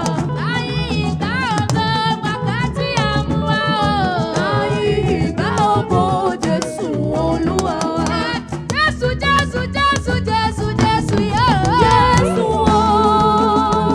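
Gospel praise music performed live: voices singing over a band with drums and percussion. Near the end the singing gives way to a steady held chord.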